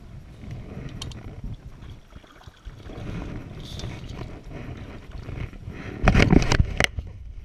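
Stand-up paddle board being paddled: water sloshing and paddle noise, with a few sharp clicks about a second in. A loud cluster of knocks and clatter comes about six seconds in.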